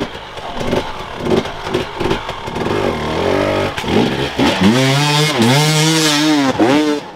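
Enduro dirt bike engine revving hard as the rider works the throttle on a difficult obstacle. It is choppy and uneven at first, then held at high revs from about four seconds in, dipping and rising twice.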